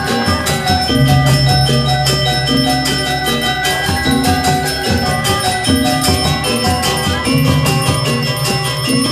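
Balinese gamelan playing: fast, dense strokes on metallophones with ringing tones, and a deep low gong tone sounding about a second in and again near the end.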